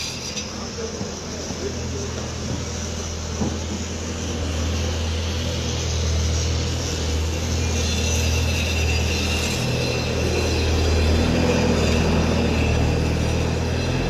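A construction machine's engine running steadily, a low hum that grows louder about four seconds in.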